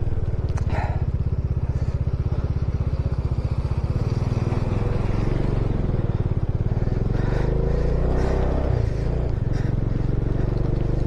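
Bajaj Dominar 400's single-cylinder engine running steadily as the motorcycle is ridden at an even pace, its fast firing pulses unbroken.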